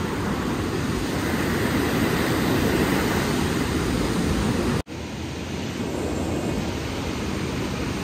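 River water rushing, a steady, even rush without any rhythm. It drops out for an instant just under five seconds in, then goes on unchanged.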